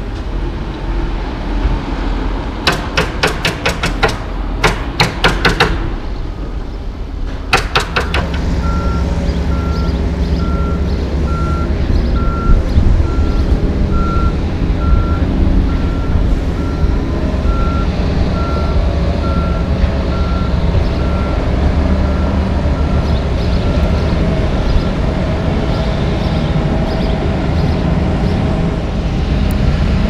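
Concrete mixer truck's diesel engine running while its backup alarm beeps steadily, a little faster than once a second, fading out near the end; the truck is reversing. Before that, a run of sharp knocks and clanks.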